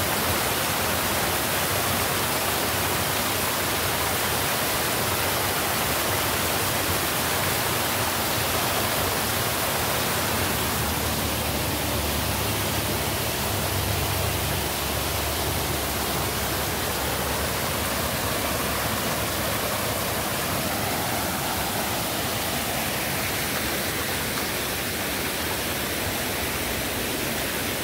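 Steady rush of floodwater pouring over a concrete dam overflow below culvert pipes, swollen by heavy overnight rain; a little fainter toward the end.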